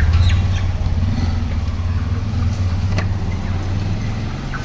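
Low, steady rumble of a motor vehicle engine that slowly fades, with a few faint sharp ticks, one about three seconds in.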